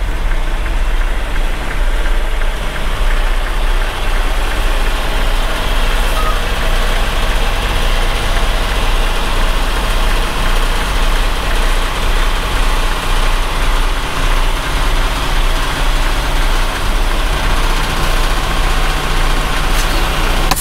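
Semi-truck's diesel engine running steadily at low revs, heard from inside the cab as the tractor-trailer is eased slowly into a parking spot.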